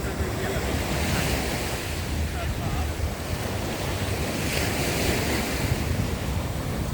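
Sea waves washing onto a sandy beach, a steady surf hiss that swells and eases, with wind buffeting the microphone in a low rumble.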